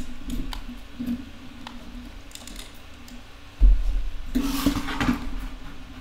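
Handling noise from a plastic-covered diamond painting canvas: scattered small clicks and crinkles, a sudden low thump about three and a half seconds in, then a brief rustle of plastic film.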